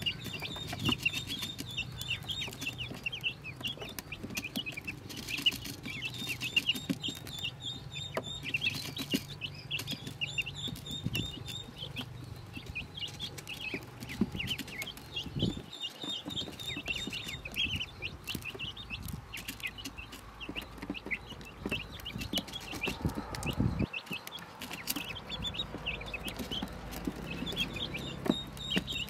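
A brood of newborn Pekin ducklings peeping without a break, with many short, high-pitched peeps overlapping. Scattered light taps sound among the peeps.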